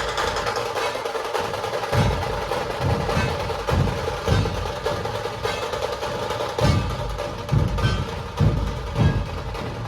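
Dhol tasha ensemble playing: deep dhol strokes at an uneven beat under a continuous fast rattle of tasha snare drums.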